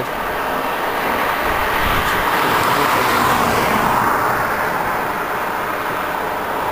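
Steady car road noise, tyres and engine, swelling slightly about three to four seconds in.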